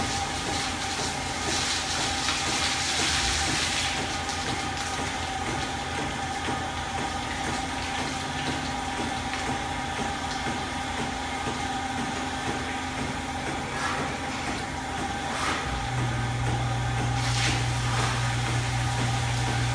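Milking-parlour machinery running steadily: the vacuum and milk lines of milking units on the cows, with a constant whine. A hissing stretch comes early, a few short hisses come later, and a deeper hum comes in about three-quarters of the way through.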